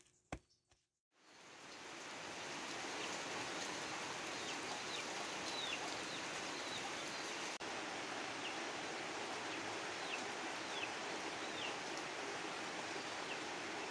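A wooden pestle knocks once in a wooden mortar at the very start. After a short gap, steady rain fades in, falling on trees and grass, with a few brief high bird chirps over it.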